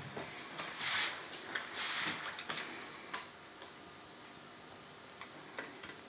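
Rustling and scraping of hands and multimeter test leads being handled over a washing machine's electronic control board, mostly in the first half. A few light sharp clicks follow, the clearest about three seconds in.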